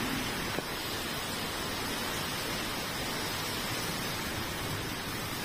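Steady rush of storm wind and driving rain from a tropical cyclone, with one short click about half a second in.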